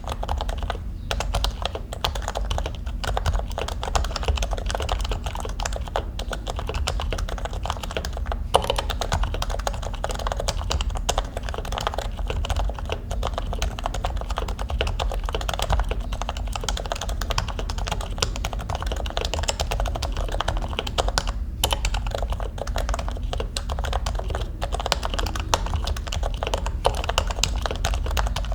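Typing on a Topre Realforce 87UW keyboard with electrostatic capacitive switches: rapid, continuous keystrokes in a dense stream, broken by two short pauses.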